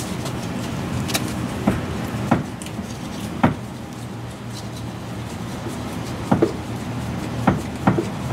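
Irregular metallic knocks and clunks, about eight of them, as a seized alternator is rocked back and forth by hand in its tight mounting bracket to work it loose, over a steady low hum.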